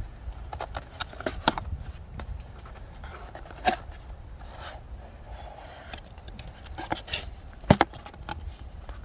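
Unpacking aftermarket strut clamps and their bolt hardware from a box: rustling and scraping of packaging with scattered clicks and a few sharp knocks as the parts are handled.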